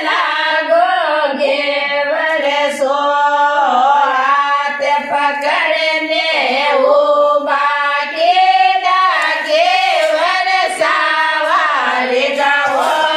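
Women singing a Marwari folk song in Rajasthani style, voices only with no instruments, in long flowing phrases.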